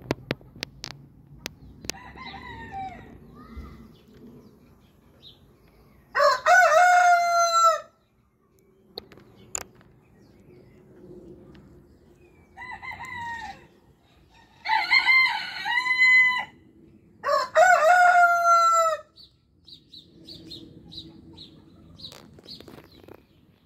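Orpington and Marans roosters crowing in turn: a faint crow a couple of seconds in, a loud crow about six seconds in, then a fainter crow followed by two loud ones between about twelve and nineteen seconds.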